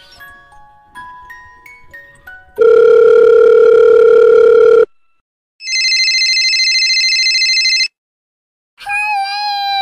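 Telephone sound effects: a quick run of stepping beeps like a number being dialed, then a loud steady tone for about two seconds, then a high warbling electronic ring for about two seconds. Near the end comes a tone that slides sharply downward.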